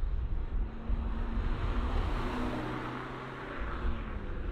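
Fiat Abarth 500 Esseesse with a 1.4-litre turbocharged four-cylinder engine driving past. Its engine note and tyre noise swell as it passes about halfway through, then fade as it drives away.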